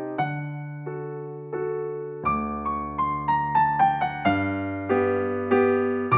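Background music: a gentle piano melody, slow notes at first, then a quicker run of falling notes from about two seconds in.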